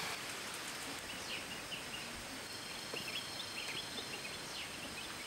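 Quiet background hiss with faint, scattered short high chirps from distant birds.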